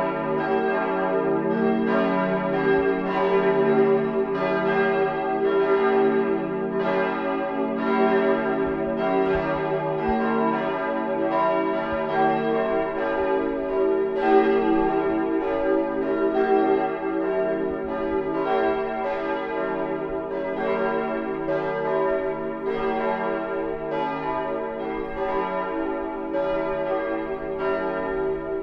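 Full peal of church bells, all the bells swinging together, their strokes overlapping one to two a second in an uneven pattern while the tones hang on: the ringing-in that calls to Sunday service.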